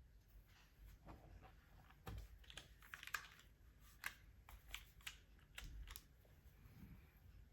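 Faint typing on a gasket-mounted Cruel World CW88 mechanical keyboard with Hyperglide MX Brown tactile switches, a polycarbonate plate and CRP keycaps: irregular key clacks, busiest in the middle and sparse near the start and end.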